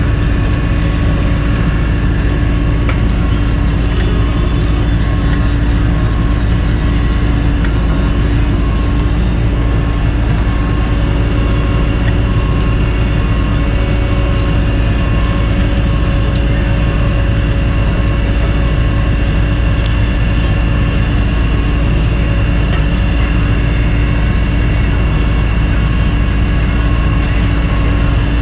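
CAT asphalt paver's diesel engine running steadily, with a faint beep repeating about once a second.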